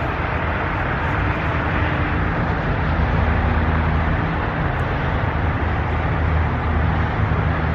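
Steady rumble and rolling noise of a freight train's autorack cars running along the rails.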